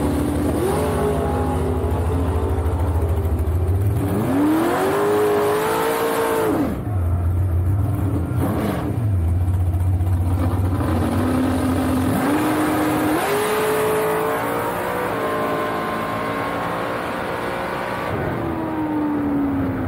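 Dragster's engine heard from the cockpit: a steady idle, then two quick revs that rise and drop back. About twelve seconds in it launches and accelerates down the strip, the pitch climbing in steps, then falling away near the end as it slows.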